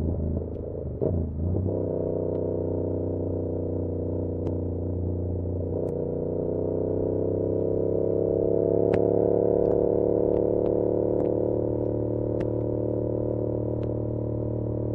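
2022 Yamaha R7's parallel-twin engine through an SC-Project CR-T exhaust, running steadily under way, with a brief break in the engine note about a second in and a gradual rise in revs from about six to nine seconds in. Backpack straps slap against the bag in scattered sharp clicks, heard with the engine from a recorder inside the backpack.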